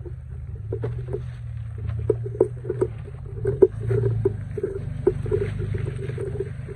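Toyota FJ Cruiser's 4.0-litre V6 running low and steady as the truck crawls slowly over rocks, with frequent irregular crunches and knocks on the rocky trail.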